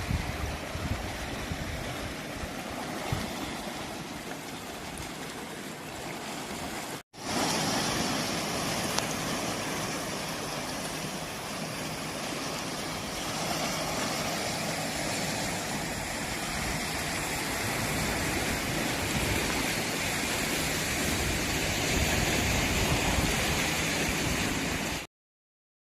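Steady rushing noise of wind and water. It breaks off for an instant about seven seconds in, then runs on until it cuts off abruptly near the end.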